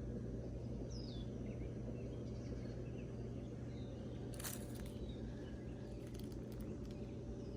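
Outdoor ambience: a steady low background rumble with a few faint bird chirps, one sliding downward about a second in. A brief click sounds about halfway through.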